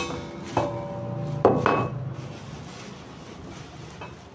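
Metal knocks with a brief ring: the stand mixer's stainless steel bowl and wire whisk clanking as they are handled. Four knocks come in the first two seconds, then it goes quiet apart from one small click near the end.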